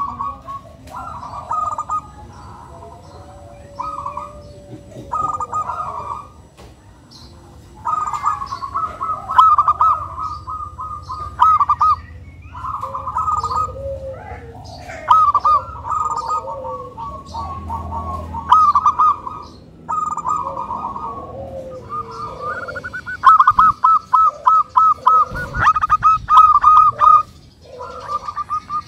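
Zebra dove (local perkutut) cooing: phrases of rapid, clipped notes repeated again and again with short pauses, with the longest and loudest run about three-quarters of the way through.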